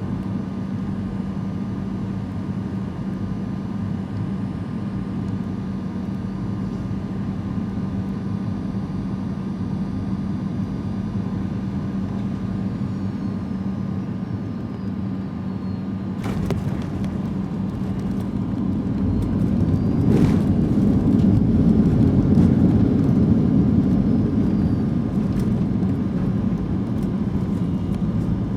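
Boeing 737-800 cabin noise, a steady drone with a constant low hum from the jet's CFM56 engines and airflow. About 20 seconds in a sharp thump, then a swell of louder low rumble for several seconds that eases off: touchdown followed by reverse thrust and braking.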